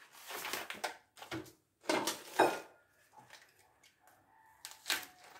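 Kitchen handling sounds on a wooden cutting board: a knife and a plastic-wrapped pack of crab sticks, a run of rustles and sharp knocks, the loudest two a little after two seconds in.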